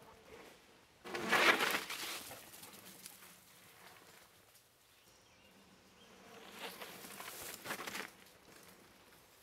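Mountain bike riding past close on a dirt and leaf-litter trail: tyre noise on the dirt and a buzz from the coasting bike. It happens twice, loudest and shortest about a second in, then again, weaker and longer, from about six and a half to eight seconds in.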